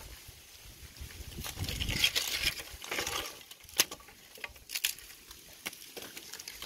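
Loose pebbles clicking and shifting as puppies move about on the stones, with a rustling stretch early and a few sharp clicks later on.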